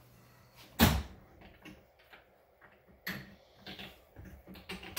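A sharp knock about a second in, then a string of lighter clicks and knocks: a power-lift windshield being handled and seated against the side-by-side's roll-cage mounts.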